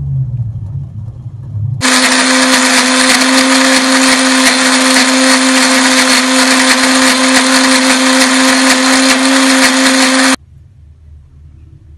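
A low rumble for about two seconds, then a Philips electric blender starts and runs steadily at one pitch, grinding a wet spice paste of shallots, garlic, chillies and candlenuts. It cuts off suddenly about eight seconds later.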